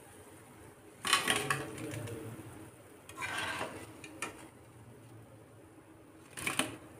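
A round wire skimmer clinking and scraping against a frying pan and a plate as fried lentil dumplings are lifted out of the oil and tipped onto the plate, in a few short bouts of clatter about a second in, around three seconds and near the end.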